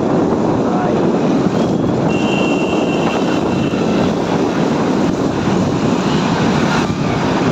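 Motorcycle running at road speed with wind rushing over the microphone, a steady loud rumble. About two seconds in, a thin high steady tone sounds for about a second and a half.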